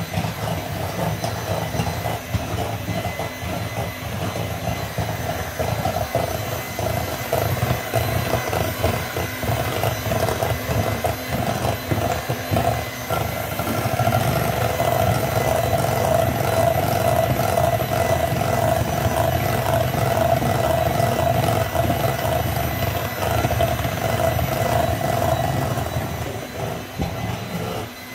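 Electric hand mixer running steadily, its beaters churning cookie dough of butter and brown sugar in a bowl. The motor's hum grows louder about halfway through and falls off near the end.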